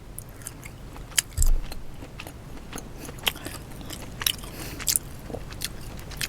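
Boiled crawfish being peeled and eaten close to the microphone: irregular small clicks and cracks of shell, with a dull bump about a second and a half in.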